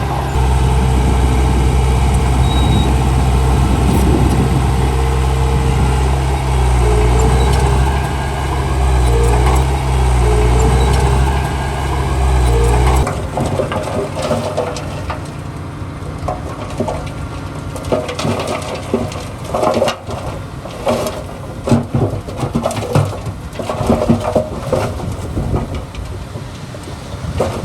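Heavy diesel construction machinery running loudly and steadily, with a deep low engine note that shifts slightly in pitch. About halfway through the sound cuts abruptly to a quieter stretch of irregular knocks and clatter over a lower engine sound.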